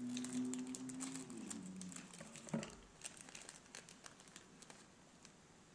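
Light crinkling and crackling of a plastic snack bag being handled, with a hummed voice held steady and then falling in pitch over the first couple of seconds, and one thump about two and a half seconds in.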